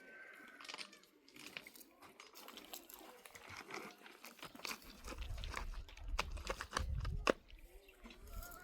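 Dry hay rustling and crackling with irregular sharp snaps as it is handled, with a low rumble in the middle.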